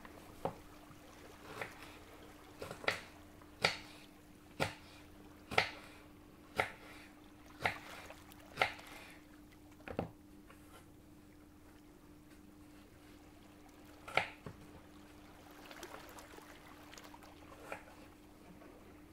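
Food-preparation sounds: a run of sharp taps or knocks about once a second, then a few more spread out, over a faint steady low hum.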